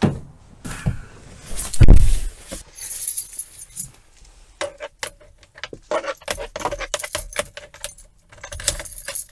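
A heavy thump about two seconds in, then a set of car keys jangling and clicking as the key is fumbled toward and into the car's ignition lock on the steering column.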